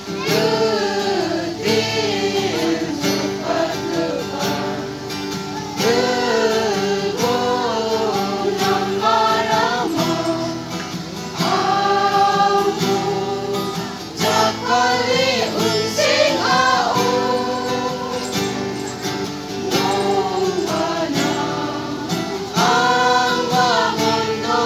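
A large group of women singing a song together in unison, reading from song sheets, accompanied by a strummed acoustic guitar.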